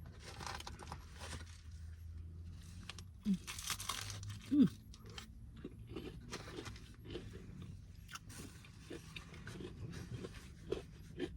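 Close-up chewing and crunching of fried food, a run of crackly bites and chews, with two brief closed-mouth hums about three and four and a half seconds in.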